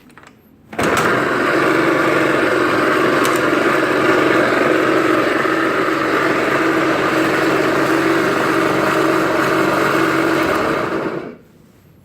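Honda Smart Dio scooter's 50cc engine starting abruptly about a second in, running steadily for about ten seconds, then switched off. Its start-up carries an abnormal noise that the mechanic puts down to play in the crankshaft bearings.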